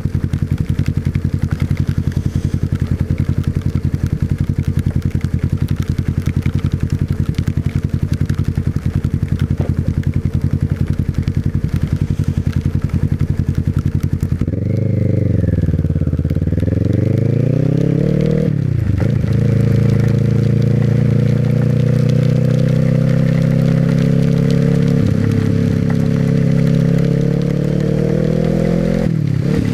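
Small motorcycle engine running at a steady note, then accelerating, with its pitch dropping and climbing again at gear changes about two-thirds of the way in and again at the very end.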